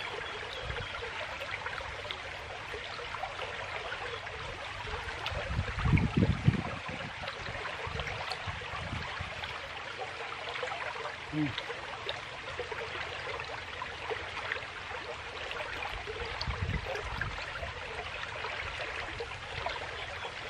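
A fast, rain-swollen muddy stream rushing over rocks, giving a steady hiss of running water. A few low thumps stand out over it, the loudest about six seconds in.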